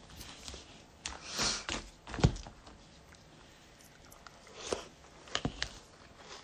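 Handling noises from a cereal cup and a metal spoon: scattered clicks, knocks and brief rustles as the spoon is stirred in the cup of cereal, with one sharp knock about two seconds in as the loudest sound.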